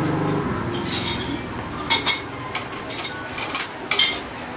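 Metal spoons and forks clinking and scraping against plates and bowls, in scattered short clinks, the loudest about two seconds and four seconds in.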